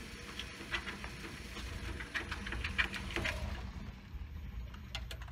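Footsteps of a person walking, heard as irregular short scuffs and clicks over a steady low rumble.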